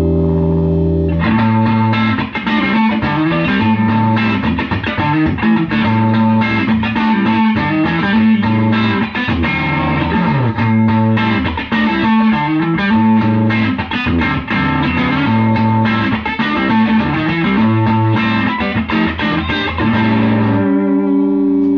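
Electric guitar (a Les Paul replica with PAF-style humbuckers) played through a 1964 Gibson GA77 RVT Vanguard valve amp on its original tubes, first channel at volume nine, into a Marshall Heritage 16-ohm speaker; very loud. A held chord rings, then a repeating low-string riff with chords above runs until a final held chord that is cut off.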